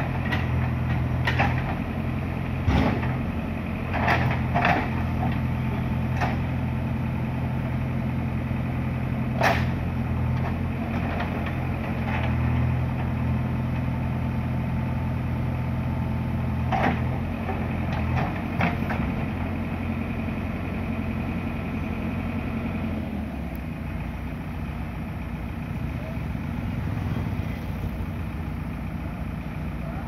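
JCB backhoe loader's diesel engine running steadily at working speed while the backhoe digs the road edge, with several sharp knocks and clanks from the digging. About 23 seconds in the engine note drops lower and quieter.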